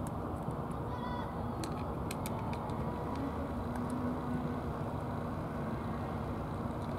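Steady low outdoor rumble, with a few faint crisp clicks as a tabby cat crunches dry cat food. A short high chirp comes about a second in.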